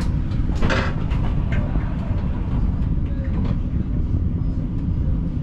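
Siemens Combino tram running along street track: a steady low rumble of wheels on the rails and the drive, with one short, sharper noise about a second in.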